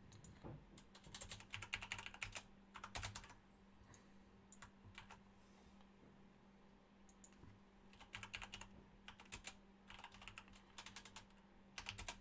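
Computer keyboard typing in short bursts of faint keystrokes, with pauses between the bursts.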